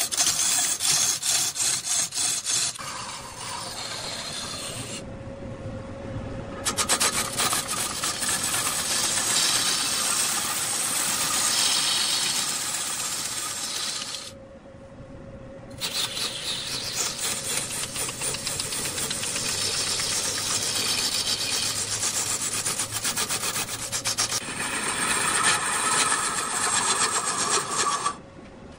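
A turning tool cutting into a large piece of wood spinning on a lathe: a loud, steady rasping full of rapid ticks. It stops twice, a few seconds in and about halfway through, for a second or two, while a steady machine hum carries on underneath.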